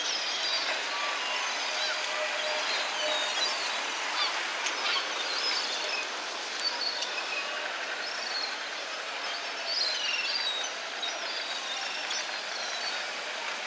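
Blackpool double-deck tram 718 running along the promenade track: a steady noise of steel wheels on rail, with scattered short, high squeaks over it.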